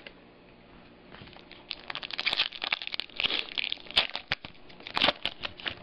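Crinkling and tearing of a trading-card pack's foil wrapper as it is ripped open and handled, an irregular run of crackles starting about a second in.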